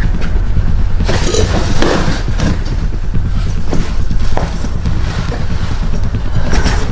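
A steady low rumble throughout, with rustling and a few knocks, the rustling densest about one to two and a half seconds in.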